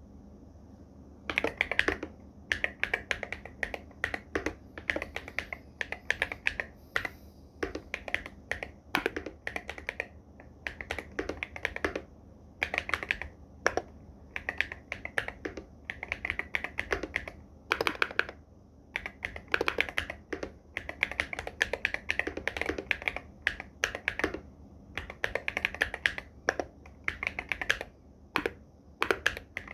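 Fast typing on an Irok MG75 Pro mechanical keyboard with Silver Purple Star switches and Loga x Wongnai keycaps: rapid runs of keystrokes in bursts with short pauses between words, starting about a second and a half in.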